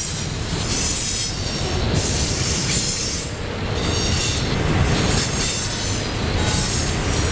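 Double-stack intermodal container well cars rolling past close by, their steel wheels rumbling on the rails under a steady high-pitched wheel squeal.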